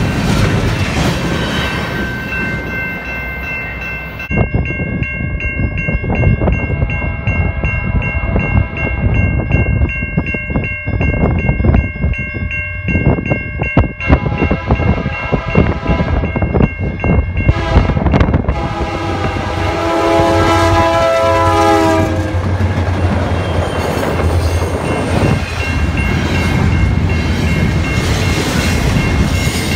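Double-stack container freight train rolling past with steady wheel and railcar clatter. About 19 seconds in, an approaching diesel locomotive sounds its multi-note horn for about three seconds at the road crossing, then its stack cars roll through.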